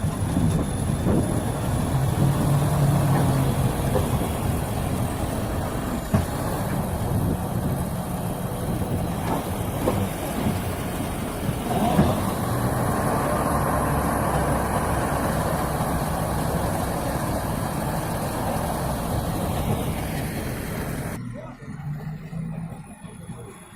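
Heavy vehicle engine running steadily under a rough mechanical noise, with a few sharp knocks; near the end the sound cuts abruptly to a quieter engine.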